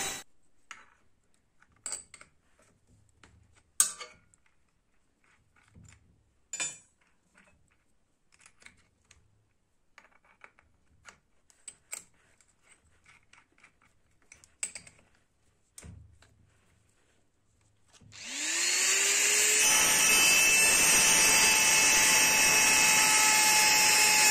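Scattered light clicks and metallic taps as a bit is changed and its collet tightened with a small wrench on a handheld rotary tool. Near the end the rotary tool starts with a rising whine and runs steadily, its carbide burr grinding a fuller into the N690 stainless steel blade.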